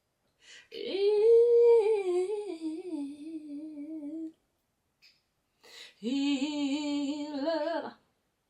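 A woman humming two long, wavering notes: the first about three and a half seconds long, falling in pitch, and the second about two seconds long.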